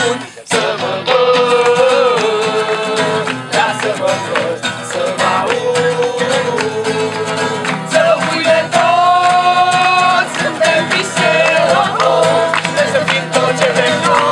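A group singing a song together, accompanied by two strummed acoustic guitars; the music dips briefly right at the start and then carries on steadily.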